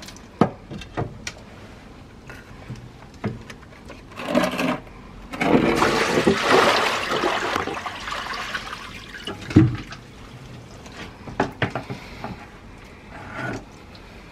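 A bucket of water emptied into a drain: a rush of pouring and splashing water for about three seconds, starting about five seconds in and tailing off. A few knocks come before and after it, the sharpest about a second after the pour.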